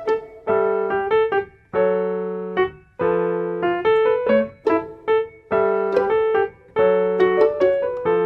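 Background music: a light piano or electric-piano melody of struck notes that ring and fade, about two or three notes a second.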